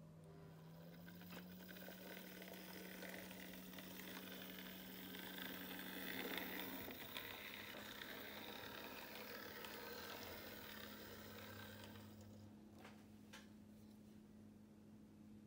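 OO gauge model tank locomotive and wagon running along the track: a faint whirring and rolling noise that swells to its loudest about six seconds in and fades away by about twelve seconds, over a steady low hum.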